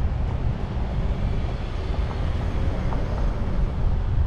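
Wind buffeting the microphone of a camera mounted on the outside of a slowly moving car, a steady low rumble mixed with traffic noise.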